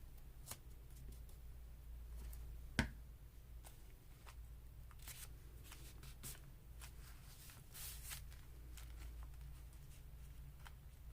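Paper being handled and rustled, with scattered light ticks and one sharp tap or knock about three seconds in.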